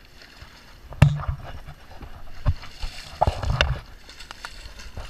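Hooked snook thrashing and splashing at the water's surface beside a boat, with several sharp knocks and thumps mixed in, the loudest about a second in.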